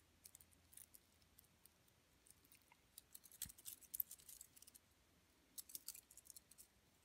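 Faint, scattered metallic clicks and clinks of an Apple Watch's stainless steel link bracelet and butterfly clasp being handled as the watch is put on the wrist, in a few small clusters.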